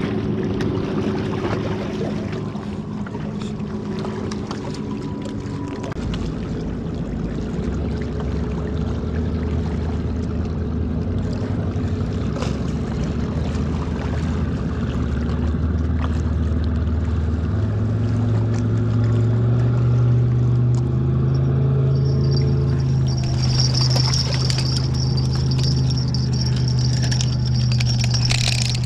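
A motorboat engine droning steadily, growing louder, its pitch stepping up about six seconds in and again near eighteen seconds as the throttle opens. A high steady whine joins it near the end.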